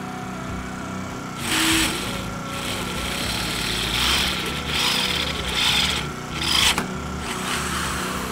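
About seven short, rough scrapes of metal against the drilled steel bracket, the loudest about two seconds in and near the end, over a steady low hum.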